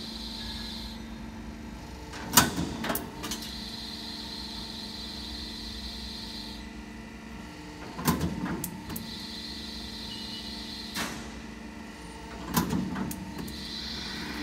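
C purlin roll forming machine running, a steady mechanical hum with a high whine that comes and goes. Three sharp metallic bangs, about five seconds apart, cut through it.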